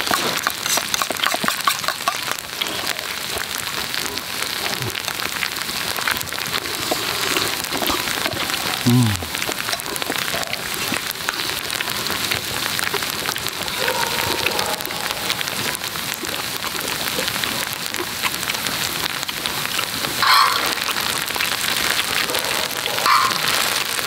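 Pork and kimchi fried rice sizzling steadily on a hot cauldron-lid griddle (sot-ttukkeong), a dense crackling hiss, with a couple of short louder sounds about nine and twenty seconds in.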